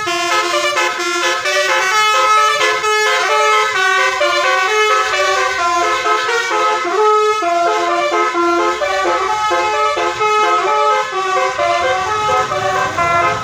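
Bus telolet (basuri) multi-tone horn playing a melody of stepped, held notes, changing pitch several times a second.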